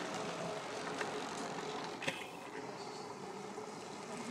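Steady outdoor rushing background noise with a faint steady hum through it, and a sharp click about two seconds in.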